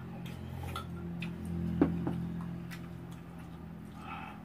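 Eating sounds from a noodle meal: scattered small mouth clicks and smacks from chewing, the sharpest a little under two seconds in, over a steady low hum.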